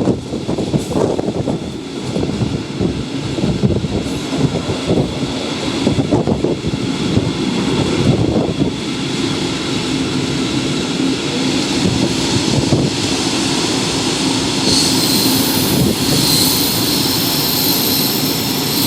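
Diesel-hauled regional express passenger train running on the rails with a steady rumble. About fifteen seconds in, thin high-pitched brake squeal comes in as braking begins.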